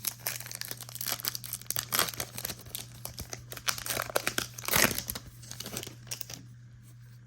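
Crinkling and tearing of a plastic trading-card pack wrapper as it is handled and opened, a dense crackle that is loudest just before the five-second mark and dies down over the last second or so.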